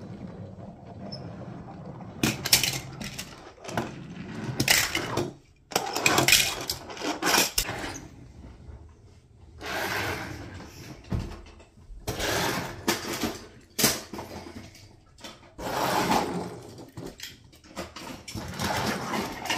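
Die-cast toy cars pushed along a hard tabletop, their small wheels making a rolling rumble in about seven separate runs of one to two seconds each, with short pauses between.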